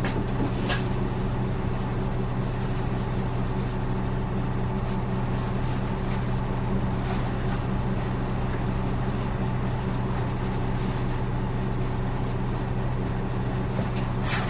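Diesel engine of an Isuzu Erga city bus (PKG-RA274MAN) heard from inside the cabin, running at a steady speed with an even hum and no revving. This particular bus is known for an engine sound unlike others of its type.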